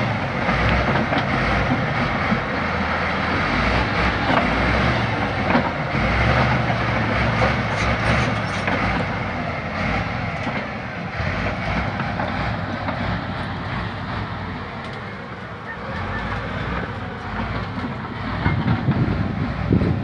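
LiuGong crawler bulldozer working: diesel engine running steadily over the continuous clatter of its steel tracks. The engine eases off about three-quarters through and picks up again near the end.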